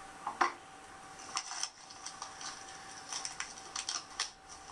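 Light, irregular clicks and crinkles of a parcel being unwrapped and its packaging handled, coming in small clusters.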